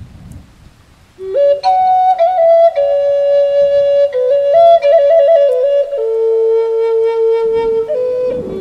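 Native American style flute (pimak) in G playing a slow improvised melody. It enters about a second in with long held notes, ornamented turns in the middle, and a step down to a lower sustained note. A low rumbling thunderstorm background sits underneath, heard most clearly before the flute comes in.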